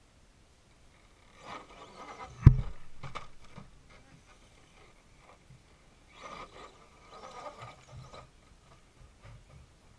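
Radio-controlled rock crawler driving over rocks in two short spells, its small electric motor and gears whirring and its tyres scraping, with a sharp knock about two and a half seconds in.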